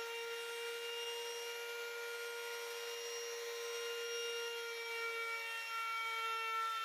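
Handheld trimmer router running at speed with a steady high whine, its bearing-guided bit trimming the overhanging edge of a mica laminate sheet flush with the countertop.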